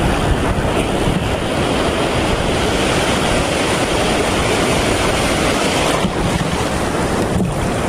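Ocean surf breaking and washing around the rocks at close range, a steady loud rush, with wind buffeting the microphone; a wave splashes up over the camera near the end.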